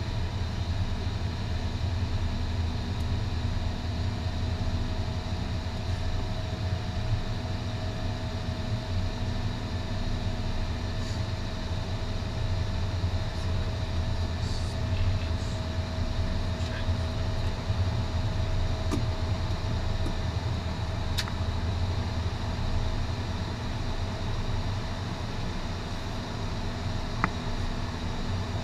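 Steady cockpit noise of an Airbus A321: a low engine and airflow rumble with several constant hums, and a few faint clicks.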